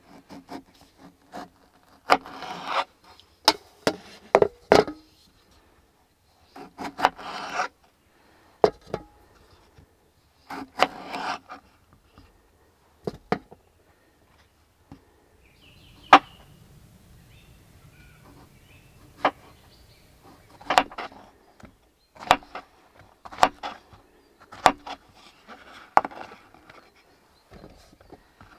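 Kitchen knife cutting tomatoes and zucchini on a wooden cutting board. In the first half come several short rasping slicing strokes, each with sharp taps of the blade on the board. After that the strokes are mostly separate sharp knocks, like dicing.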